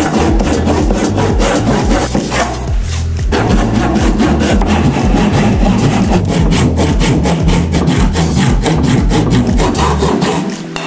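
Hand saw cutting through a thick wooden beam in quick, even back-and-forth strokes.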